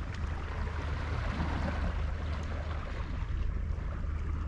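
Steady open-air background: a constant low rumble of wind on the microphone under an even hiss of washing sea water.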